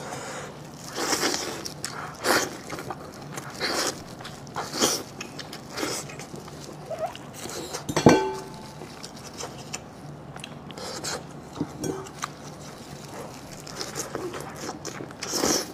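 Close-miked eating sounds of someone biting and chewing sheep head meat: short crunchy bites and wet smacks about every second, with one sharp, louder click about eight seconds in.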